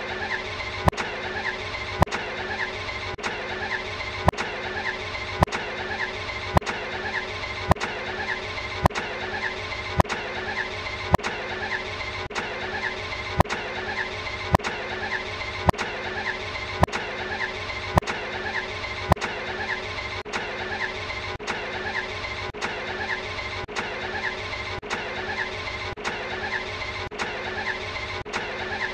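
Ferrari Enzo's V12 engine running steadily, broken by a sharp click about once a second at very even spacing, the seam of a short engine recording looped over and over.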